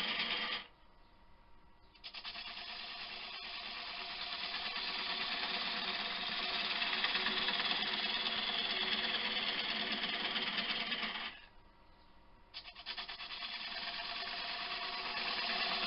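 Wood lathe turning an elm dish blank while a gouge cuts out the inside, giving a steady cutting noise over the lathe's hum. It breaks off twice, for about a second each time, about a second in and again near the end.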